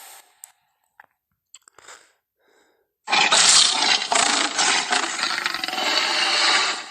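Tyrannosaurus rex film sound effect. A few faint clicks and snuffles come first, then a loud, roughly four-second roar about three seconds in, fading at the end.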